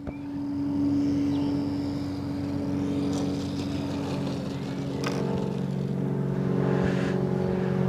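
Propeller drone of a banner-towing light aircraft's piston engine flying over, a steady engine hum that grows louder as it approaches.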